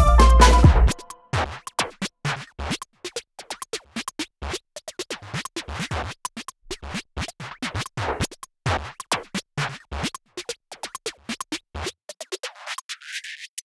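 Electronic background music. A beat with heavy bass stops about a second in, leaving a run of short, choppy hits several times a second. Near the end the sound goes thin and muffled, then the full sound sweeps back in.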